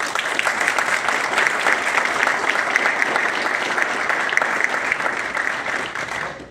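Audience applauding, breaking out all at once and tailing off after about six seconds.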